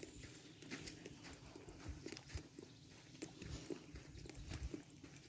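Faint footsteps on a dirt forest path, about two steps a second.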